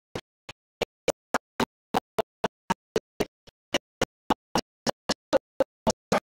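A woman's voice through a microphone, chopped into short blips about four times a second with dead silence between them: the audio cutting in and out, so her speech is broken into unintelligible fragments.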